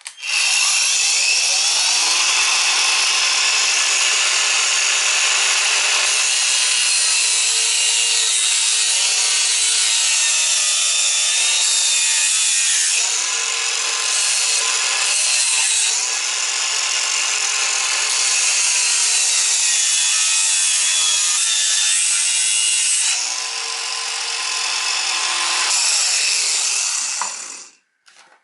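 Angle grinder running continuously as it cuts into the plastic casing of a set of hair clippers. Its pitch sags several times as the disc bites under load, and it winds down and stops near the end.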